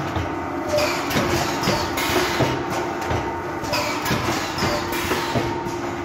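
Vertical form-fill-seal bagging machine with piston pumps, running water into pillow pouches: a steady clatter of knocks and hiss over a constant hum, its cycle repeating about every three seconds, in step with 20 bags a minute.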